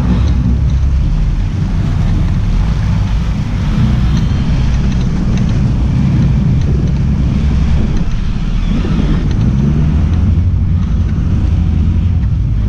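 Sport-fishing boat's engines running with a steady low rumble, mixed with wind buffeting the microphone and water churning in the wake at the stern.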